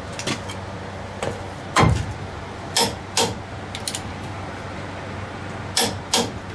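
Sharp metal clicks and knocks from a socket and long torque wrench being fitted onto a truck's front axle hub nut and set to tighten it. There is one heavier thump about two seconds in and a pair of quick clicks near the end.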